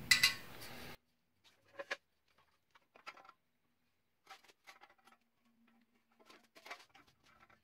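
A few faint, scattered clicks and taps of the muffler and exhaust pipe knocking against the chassis frame as the muffler-and-pipe assembly is worked out by hand.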